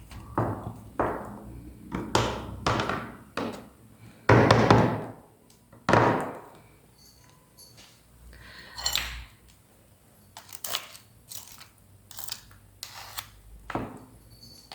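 Garlic being grated on a hand grater: several scraping strokes, the loudest about four seconds in, followed by lighter clicks and taps in the second half.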